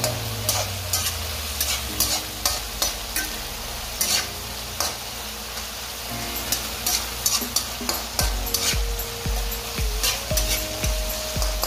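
Shrimp and minced ground chicken sizzling in a frying pan while a spatula stirs them, scraping and clicking against the pan many times.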